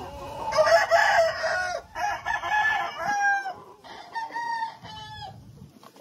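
Gamefowl roosters crowing: one long cock-a-doodle-doo starting about half a second in, each phrase ending on a falling note, then a second, shorter crow about four seconds in.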